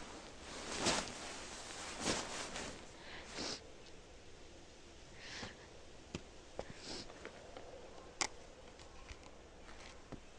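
A person sniffing several times in short breathy bursts, with a few faint sharp clicks in between.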